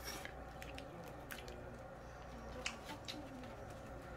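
Faint eating sounds: chewing, with small scattered clicks and rustles as slices of delivered pizza and spaghetti are picked up by hand, over a low steady room hum.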